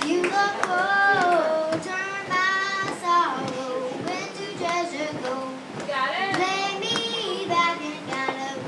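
A young girl singing a song into a microphone, with long held notes that slide up and down in pitch.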